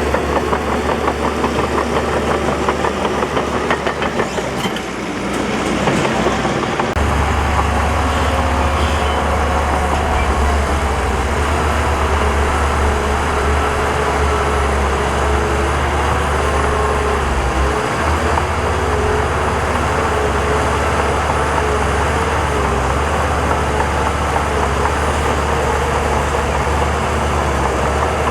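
Diesel engine of heavy earthmoving equipment running loud and steady, dipping briefly about five seconds in before picking up again.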